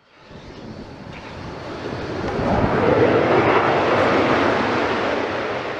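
A rushing jet-aircraft flyby sound that swells to a peak about three seconds in and then fades away.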